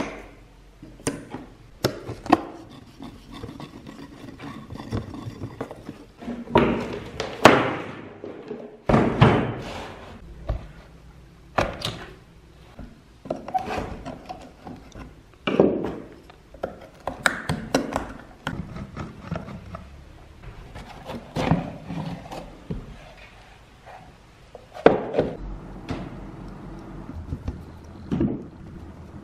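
Screwdriver working on the rusty screws and plastic housing of an old electric fan during disassembly, with irregular knocks, clicks and scraping as the parts are handled.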